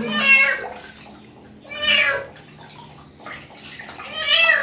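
A thin stray cat meowing three times, loud and drawn-out, the second call falling in pitch, as it protests being bathed in a basin of water. Light splashing of water is heard between the calls.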